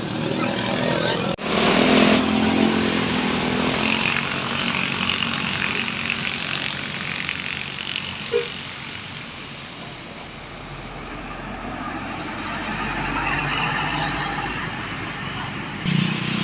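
Road traffic passing close by: large buses and other vehicles running past with engine and tyre noise, swelling and fading as they go by. The sound breaks off sharply about a second in and again near the end.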